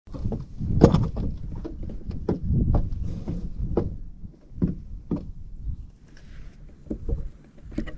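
Irregular knocks, taps and rubbing very close to the microphone over a low rumble, about a dozen sharp knocks in all: handling noise from a hand holding up a crappie in a fishing boat.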